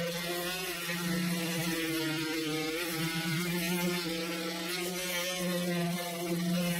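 Electric power sander running steadily as it sands cured thickened-epoxy filler on a fibreglass overhead to level it before cloth goes on. The motor hum wavers slightly in pitch as the sander is pressed against the work, over a constant grinding hiss.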